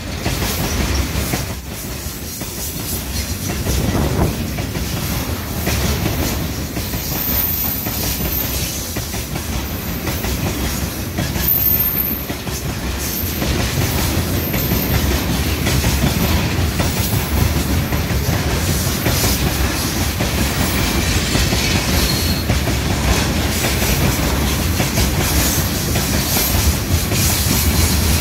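Freight train of rail tank cars rolling past close by: a steady rumble of wheels on rails with clickety-clack over the rail joints. There are a few brief, faint, high wheel squeals about a third of the way in.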